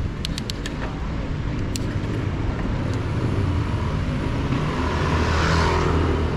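Street traffic and road noise heard from a moving mountain bike, a steady rumble with a few light clicks in the first second. A louder rush swells up about five seconds in and fades.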